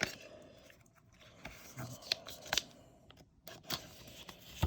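Quiet handling of Pokémon trading cards and booster-pack wrappers: scattered soft clicks, scrapes and rustles, a few sharper ticks among them.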